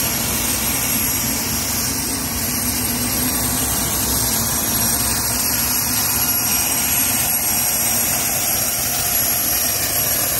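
Solar T62T32 gas turbine of a Dragonfly helicopter running steadily on the ground: a constant high turbine whine over a low rumble.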